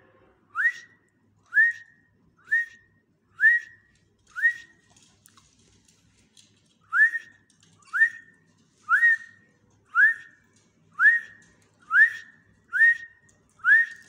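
A person whistling a series of short, rising 'whit' notes, about one a second with a two-second pause near the middle: a whistled beat to cue a pet ringneck parakeet to dance.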